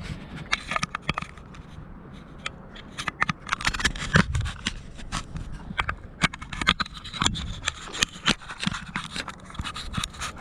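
Irregular scraping and sharp clicks from handling a freshly landed striped bass, the fish and tackle scraping and knocking against the ground.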